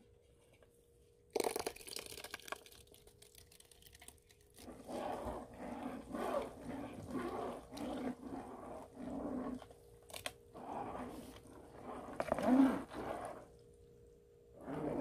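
A metal ladle stirring thick fermenting barley swindari mash in a plastic basin: a quick swish about a second in, then a run of wet squelching strokes from about four seconds on. A faint steady hum runs underneath.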